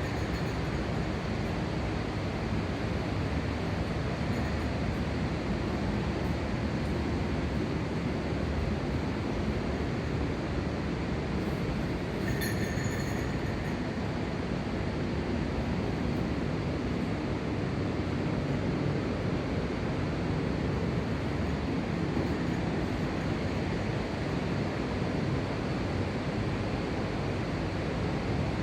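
Steady rush of mountain river water, an even unbroken noise, with a brief high-pitched sound a little under halfway through.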